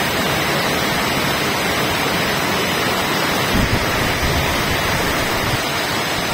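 Heavy rain pouring steadily, an even hiss of downpour, with a brief low rumble about three and a half seconds in.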